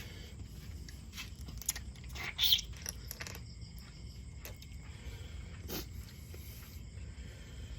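A person eating up close: chewing and mouth noises with scattered small clicks, and one louder sharp sound about two and a half seconds in.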